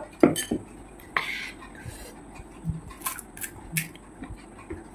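A metal spoon clinking and scraping against a glass bowl of panipuri water in a few short sharp strikes, with a brief crackle about a second in and more clicks near the end as a crisp puri shell is cracked open by hand.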